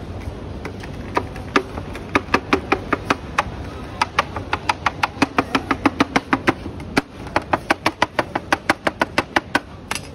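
A metal spoon taps quickly and repeatedly on a steel serving tray and plates, making sharp, ringing clinks about four or five times a second. The clinks pause briefly about seven seconds in and then carry on.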